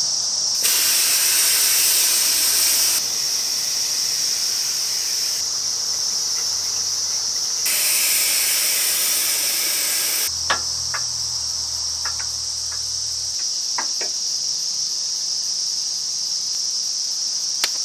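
Air hissing out of a Land Rover Discovery 2's tyre valves in three long bursts over the first ten seconds, the tyres being let down for off-road driving. A steady high drone of insects runs underneath, and a few short clicks follow.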